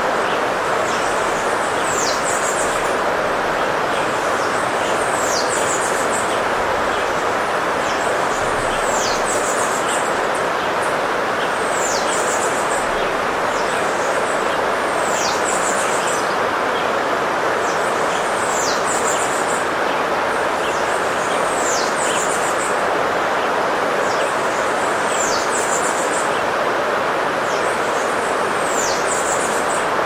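Rainforest ambience: a stream rushing steadily under birdsong. One bird repeats its phrase about every three and a half seconds, a high whistle falling in pitch followed by a quick chittering note.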